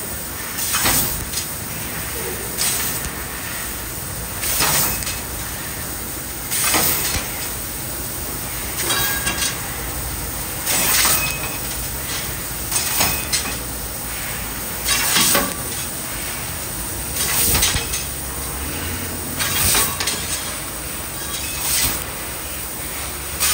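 CNC laser cutter cutting a decorative pattern through a steel door-skin sheet: a steady hiss, with louder bursts about every two seconds.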